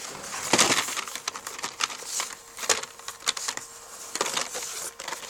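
Blister-carded Hot Wheels cars being handled and pulled from their case: irregular crinkling, clicking and tapping of plastic blisters and card backings.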